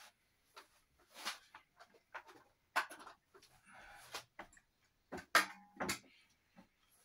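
Irregular clicks and taps of typing on a laptop keyboard, a few keystrokes at a time with pauses between, and a couple of soft breathy puffs.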